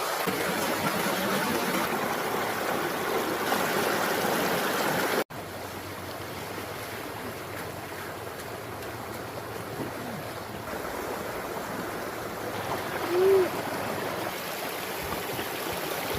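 Stream water running and trickling as a steady rushing noise, which drops suddenly to a quieter level about five seconds in. Near the end comes one short, loud pitched squeak.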